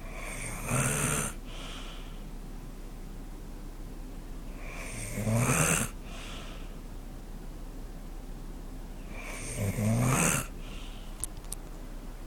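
Snoring in sleep: three loud snores about four and a half seconds apart, each followed by a softer breath.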